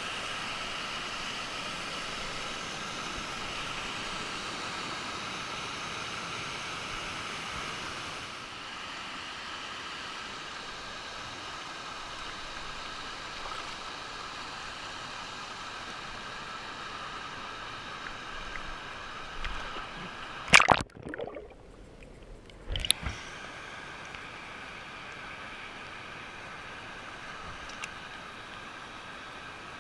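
Steady rush of falling water at a waterfall. About two-thirds of the way in come a few loud splashes, and for a couple of seconds between them the sound goes muffled.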